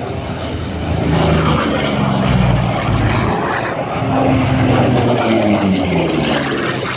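Piston-engined propeller fighter flying a low pass overhead, its engine drone swelling about a second in and the pitch shifting as it goes by.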